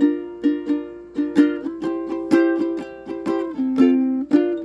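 Instrumental song intro: chords strummed on a small acoustic plucked-string instrument in a steady rhythm, each strum ringing out and fading before the next.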